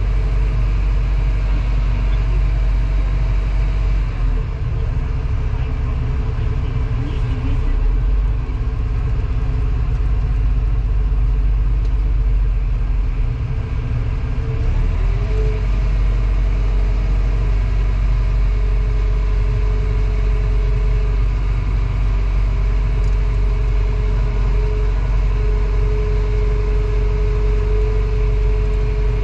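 Excavator's diesel engine running steadily, heard from inside its cab, with a deep rumble and a steady whine that slides up in pitch about fifteen seconds in and then holds.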